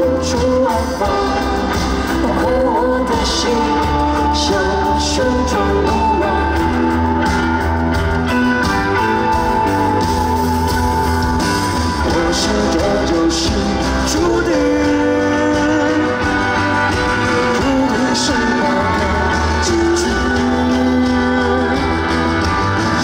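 Live pop-rock band playing on a concert stage, with drums, bass, guitar and a melody line carried over them.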